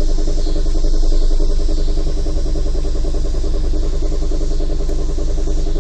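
1998 Ford Escort LX's four-cylinder engine running steadily, with the knocking and whirring noise whose cause the owner can't figure out.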